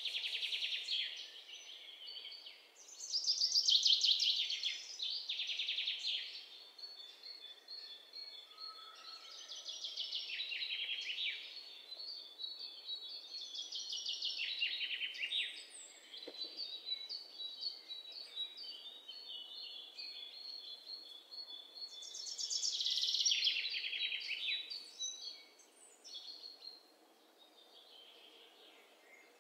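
Songbirds singing: fast rattling trills, chirps and a few held whistled notes, coming in loud phrases about 3 and 23 seconds in and fading near the end.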